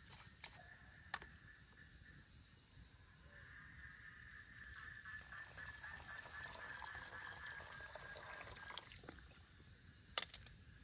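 Water gurgling out of a collapsible plastic water bag into a metal cooking pot, a pour of about five seconds starting about three seconds in. A sharp click about ten seconds in.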